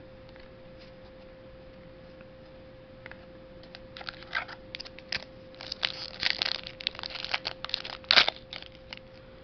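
Foil Pokémon booster pack wrapper crinkling and crackling as it is handled: a string of short sharp crackles beginning about three and a half seconds in, the loudest near the end. A faint steady hum runs underneath.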